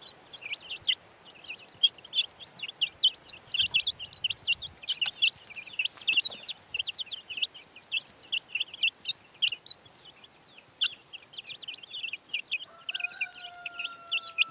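A flock of young chickens cheeping: many quick, high peeps overlapping without a break. Near the end, a long, slightly falling tone sounds for about two seconds.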